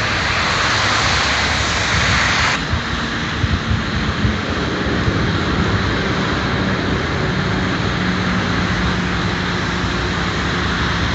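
Street traffic ambience: cars driving on a wet, snow-covered road, a steady hiss of tyres and engine noise. About two and a half seconds in, the sound changes to a lower, rumbling ambience of more distant traffic with a faint steady hum.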